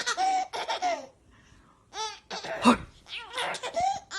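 A baby laughing in bursts of high-pitched squealing laughs, with a pause of about a second partway through.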